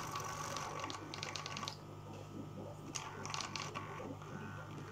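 Vintage Tri-ang OO gauge model diesel locomotive running on track, its small DC motor and gears whirring and clicking in two spells with a pause about two seconds in. It runs unevenly, very sticky: the old motor needs cleaning.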